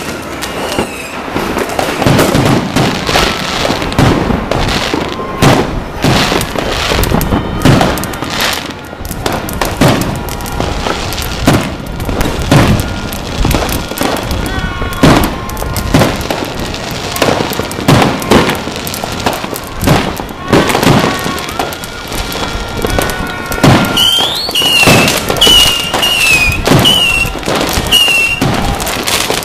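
Fireworks and firecrackers going off all across a city on New Year's Eve: a dense, irregular run of bangs and pops, some near and some distant. Near the end a repeating high, warbling chirp joins in, about once a second.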